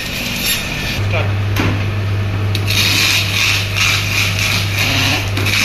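Handheld electric fish scaler: its motor starts a steady hum about a second in. From about three seconds in, its spinning head scrapes scales off a red snapper in a rapid, even rasp.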